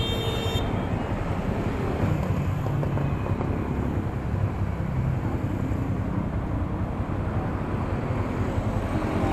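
Motorcycle engine idling, with steady street-traffic noise around it.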